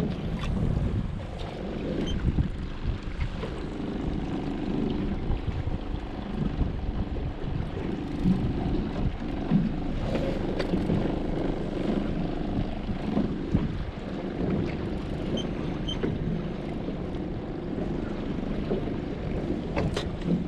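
Wind buffeting the microphone aboard a small fishing boat at sea, over a steady low rumble of the boat on the water, with a few sharp knocks.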